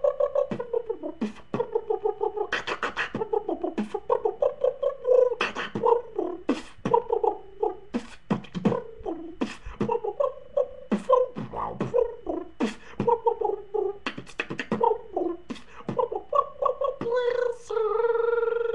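Dubstep beatboxing: "wob wob" bass wobbles from the voice, cut through by sharp mouth snares and clicks in a fast, steady rhythm. Near the end it settles into one steady held note.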